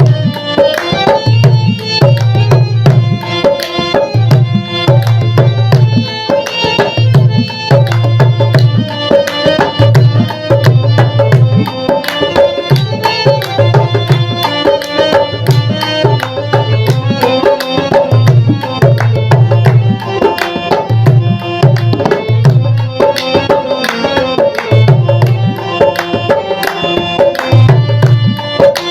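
Background music with hand-drum percussion and a deep bass note that recurs every second or so.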